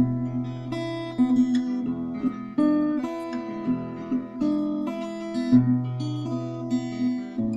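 Solo acoustic guitar playing chords, each chord ringing on with a fresh attack every second or so.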